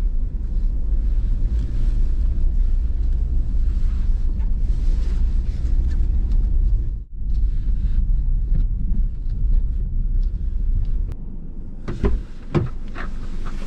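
Car cabin noise while driving: a steady low rumble of engine and road, with a brief dropout about seven seconds in and a few short knocks near the end.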